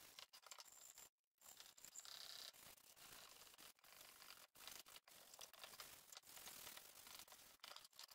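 Faint scratchy rubbing of a sanding sponge hand-sanding painted wood, in quick strokes with short pauses, breaking off completely for a moment about a second in.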